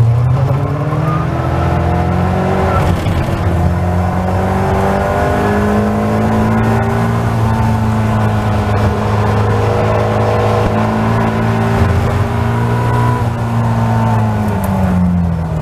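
Caterham Seven race car engine heard from its open cockpit, accelerating hard out of a corner with a rising note, then held at high revs, around 6,500 to 6,750 rpm, along the straight, over wind rush. The engine note falls near the end as the throttle is lifted.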